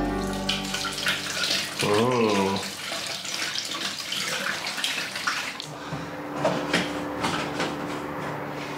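Water poured from a glass wine bottle into the narrow plastic spout of a toilet cassette, rinsing the tank out.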